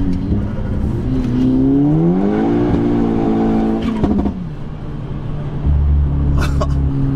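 Tuned VW Golf GTI Edition 30's turbocharged four-cylinder engine heard from inside the cabin under hard acceleration: the revs climb steeply, hold high, then fall away about four seconds in. It then runs on at a steady lower pitch with a deep rumble near the end.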